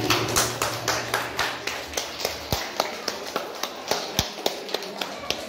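A rapid, uneven run of sharp taps or clicks, about four or five a second, growing fainter toward the end.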